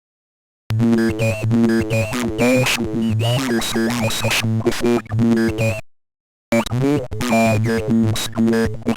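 Loud electronic synthesizer music that starts abruptly just under a second in, cuts out for about half a second near the six-second mark, then starts again.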